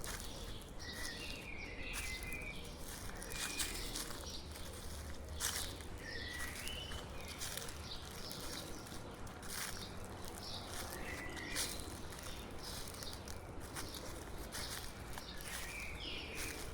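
Footsteps crunching through dry fallen leaves at a steady walking pace, one step every second or two. Now and then a bird gives a short chirp.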